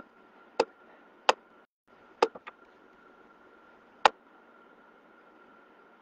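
Sharp clicks close to the microphone as a computer is operated during setup: about seven irregular clicks, with a quick run of three about two seconds in, over a steady hiss with a faint steady whine. The hiss cuts out for a moment just before the run of three.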